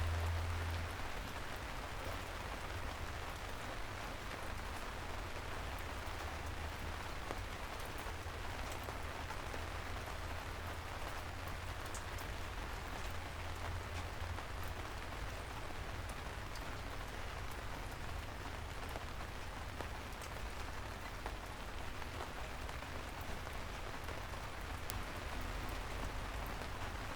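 Steady soft rain falling on city pavement, an even hiss with scattered drop ticks, over a low rumble that is strongest in the first second.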